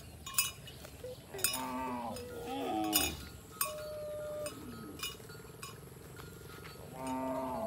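Bells on cattle clinking irregularly as the herd moves, with three short wavering calls from the cattle, about a second and a half in, at two and a half seconds, and near the end.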